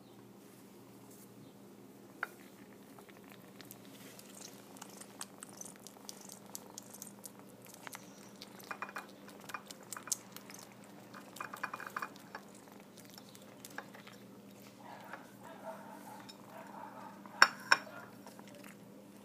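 A 5½-week-old kitten eating soft food from a china plate: scattered small wet clicks and ticks of licking and chewing, with two sharp clinks against the plate near the end.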